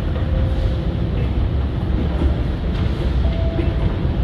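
Moving escalator rumbling steadily under a rider, with faint humming tones that come and go.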